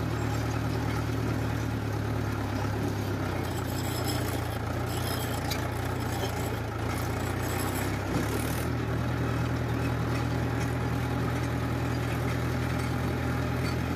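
Diesel tractor engine running steadily while the tractor drives slowly across a field, heard from the driver's seat close to the engine. A few seconds of rattling come midway, ending in a single knock about eight seconds in.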